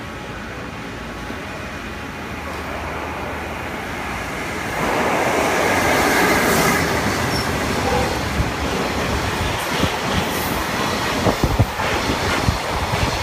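JR Freight EF66 electric locomotive hauling a container freight train through a station without stopping. Its steady running noise grows as it approaches and gets suddenly louder as the locomotive passes about five seconds in. Then come sharp, irregular clacks of the wagon wheels over the rail joints as the container flat wagons roll by.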